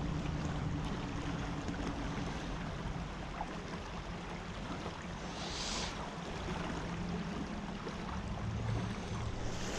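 Creek water running steadily, with a low hum underneath and a brief hiss about five and a half seconds in.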